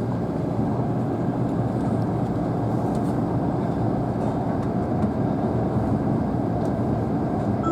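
Steady running noise of a Tobu Spacia X (N100 series) limited express train heard from inside the passenger cabin: an even rumble of wheels on rails.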